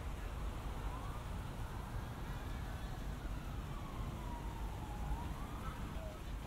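Emergency-vehicle siren wailing faintly, slowly rising and falling in pitch, over a steady low rumble.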